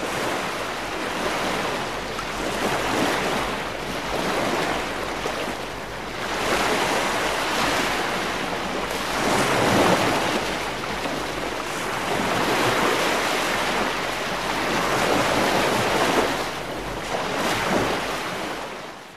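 Ocean surf: a rushing wash of waves that swells and ebbs every three to four seconds, then stops abruptly at the end.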